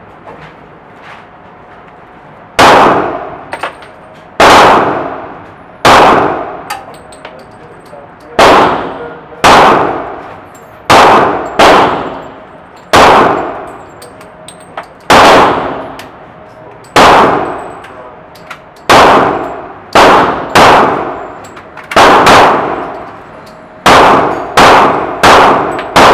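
AR-15 rifle fired semi-automatically at an indoor range, about nineteen single shots spaced one to two seconds apart, sometimes in quick pairs. Each shot is very loud and rings out in a long echo off the range walls.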